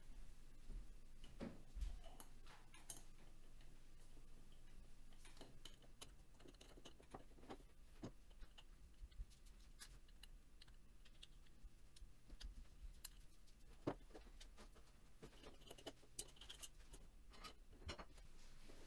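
Faint, scattered clicks and taps of a 3D-printed plastic microscope tube and its small parts being handled and fitted together by hand, with a few sharper knocks near the start, about two-thirds through and near the end.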